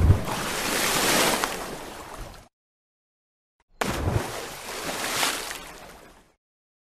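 Ocean waves breaking, twice: each wash opens with a low thump and a rushing hiss that fades over a couple of seconds, the second about four seconds in, with dead silence between them.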